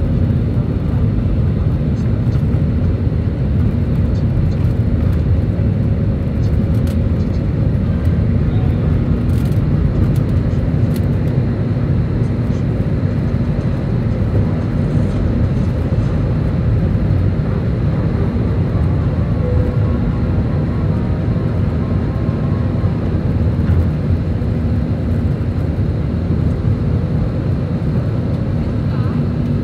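Airbus A320 heard inside the cabin over the wing at takeoff thrust: a steady, loud engine and airflow noise through the takeoff roll, lift-off and initial climb.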